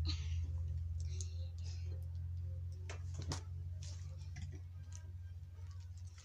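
Slime being worked in the hands: scattered wet clicks and small pops, with short hissy squelches, over a steady low hum.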